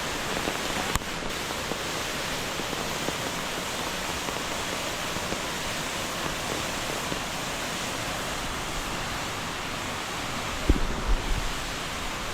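Steady rush of a nearby waterfall, an even hiss with no let-up. A few low thumps come near the end.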